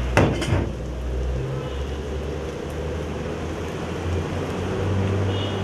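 Onions and green chillies frying in an iron kadai: a steady sizzle over a low hum, with two sharp clinks near the start.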